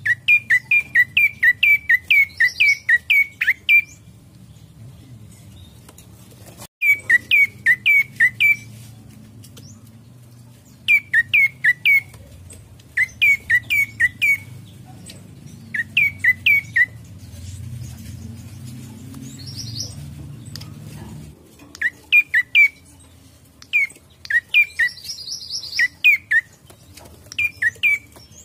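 Prenjak coki singing: bouts of sharp chirps repeated several times a second, each bout lasting one to four seconds, with pauses between them. A few brief, higher buzzy notes come in now and then.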